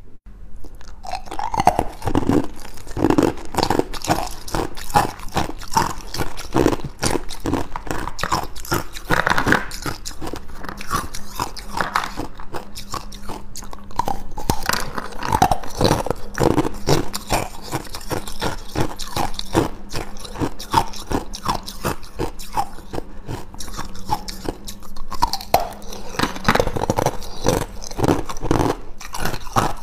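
Clear ice cubes being bitten and chewed: a dense, irregular run of sharp crunches and cracks as the cubes break between the teeth.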